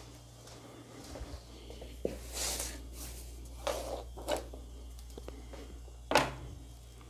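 Taffeta fabric rustling and swishing in short bursts as it is handled and spread out on a floor, with a louder burst about six seconds in. A steady low hum runs underneath.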